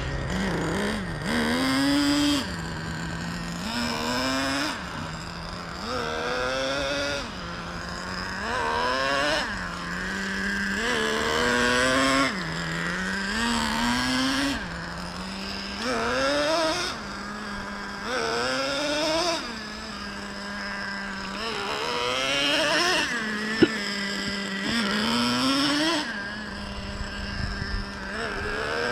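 Traxxas TRX 3.3 two-stroke nitro engine of a Revo 3.3 RC truck running in its break-in, idling between repeated throttle blips. Each blip rises in pitch for about a second and falls back to idle, about every two to three seconds.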